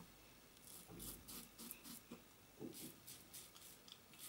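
Faint scratchy scraping of a Gillette Tech safety razor cutting a day's stubble through shaving lather, in a series of short strokes.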